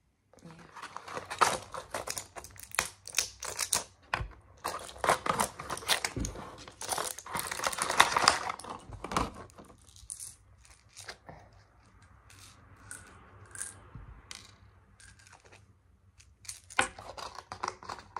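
Medicine packaging being handled as pills are taken out: a busy run of crinkling, tearing and small clicks, thinning out in the second half and picking up again near the end.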